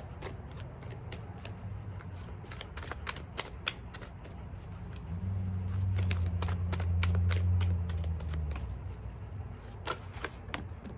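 Oracle cards being shuffled by hand: a run of quick, irregular clicks and flicks of card stock. A low steady hum swells up in the middle for a few seconds.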